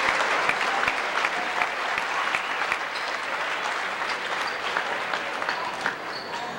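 Spectators applauding in a gym: dense clapping that eases a little after the first few seconds.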